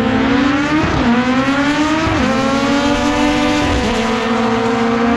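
Drag racing car accelerating hard down the strip at full throttle. The engine's pitch climbs, then drops sharply at each of three upshifts, about a second and a half apart.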